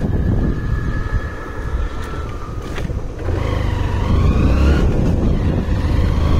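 Motorcycle engine running under way, with wind rumble on the microphone. About three seconds in it gets louder and its whine rises in pitch as the bike speeds up.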